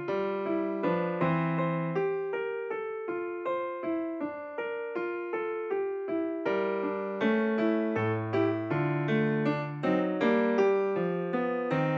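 Background piano music: a steady run of bright notes, about three a second, with chords underneath.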